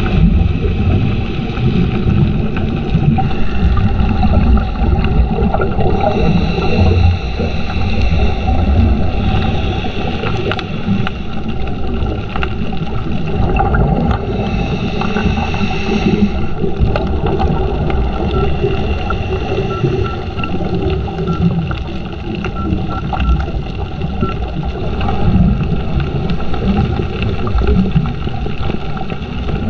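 Underwater sound picked up through a diving camera's housing: a steady, muffled low rumble of moving water. A faint higher whine swells in and fades out twice.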